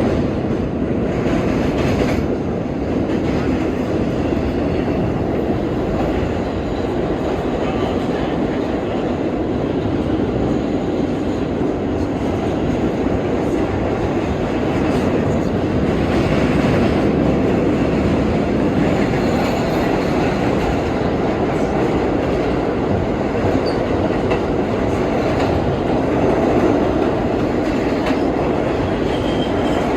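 R32 subway car running along the track at speed, its steel wheels and running gear making a steady rolling noise with the clack of rail joints, swelling slightly at times.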